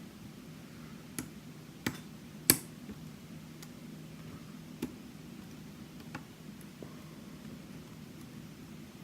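Scattered small, sharp clicks of a lock pick working the pins of a challenge lock held in a false set, about seven clicks in all, the loudest about two and a half seconds in, over a faint steady low hum.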